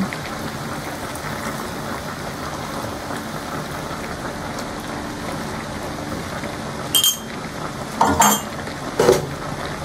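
Chop suey vegetables cooking in an aluminium wok with a steady hiss as the flour-and-butter thickener goes in. Near the end come three sharp clinks of a utensil against the wok, about a second apart.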